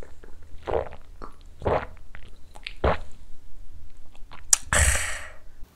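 A man gulping down a shot of soju: three swallows about a second apart, then a sharp click and a long breathy exhale after the drink.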